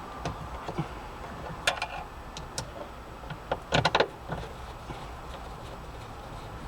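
Sharp clicks and knocks of a Porsche 997 sun visor being handled and clipped into place, a few single clicks followed by a louder quick cluster about four seconds in.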